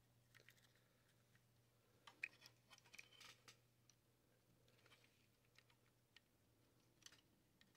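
Near silence with faint small clicks and scratches of a soldering iron and hands working on a vacuum-tube TV's circuit board, most of them about two to three and a half seconds in.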